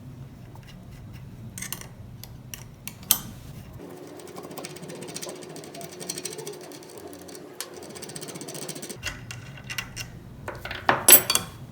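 Steel wrenches clicking and clanking on a bicycle hub's cone and lock nuts as the nuts are loosened and turned off the axle. Scattered metallic ticks run through it, with a quick run of louder clanks near the end.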